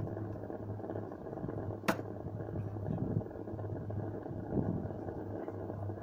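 Wood pellet combustor burning with a steady rushing noise and a low hum, and one sharp click about two seconds in.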